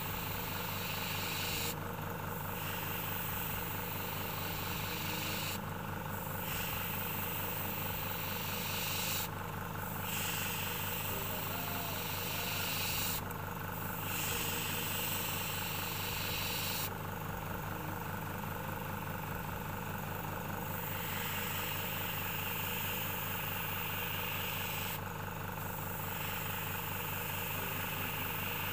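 Small air compressor running with a steady hum while an airbrush hisses in spells; the hiss cuts off for about half a second five times and once for about three seconds, while the hum carries on.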